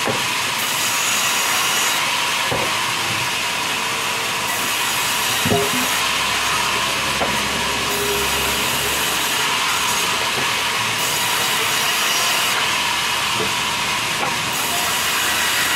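Large sawmill band saw ripping a log lengthwise into boards: a steady, loud, high hiss of the blade cutting through the wood, rising and falling as the log is pushed through. A single knock about five seconds in.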